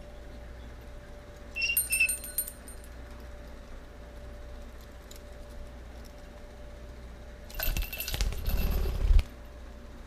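Small metal bell and beaded toy on a budgie's perch jingling and rattling as the bird plays with it: a short jingle about two seconds in and a longer rattle near the end.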